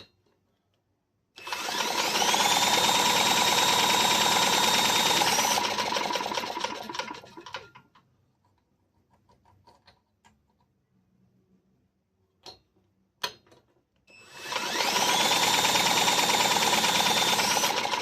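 A small electric power-tool motor, like a drill, spins up with a rising whine and runs steadily for about six seconds. Then comes a pause with two sharp clicks, and it spins up again. This fits turning the engine over to check whether the spark plug fires.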